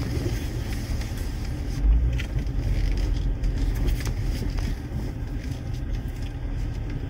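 Low, steady rumble of road and drivetrain noise inside a 2015 Chevrolet Impala's cabin as the car rolls slowly toward a stop, with a louder low bump about two seconds in.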